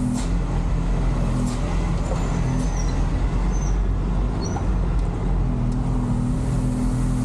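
JAC truck's engine running steadily as the truck drives slowly, heard from inside the cab.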